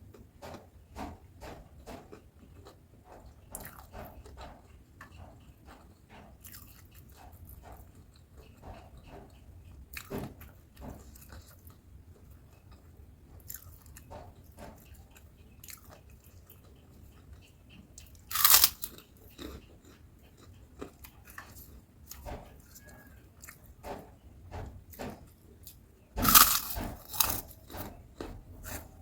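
Close-up eating sounds: a person chewing crispy battered fried tempeh and raw cucumber, with many small crunches. Two much louder crunching bites stand out, one about two-thirds of the way through and a longer one near the end.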